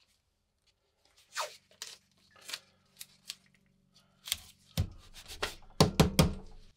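Blue painter's tape being pulled off the roll and torn: a run of short ripping sounds that come closer together and loudest near the end.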